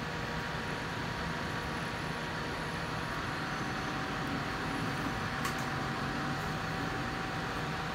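Hanstar 493-MP smoke absorber's fan running steadily, drawing air through its activated carbon filter, with a faint steady hum in the rush of air.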